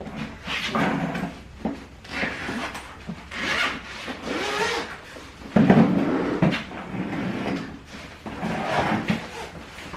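Wooden objects being handled and shifted about: irregular scraping and rubbing with a few knocks, the loudest about five and a half seconds in.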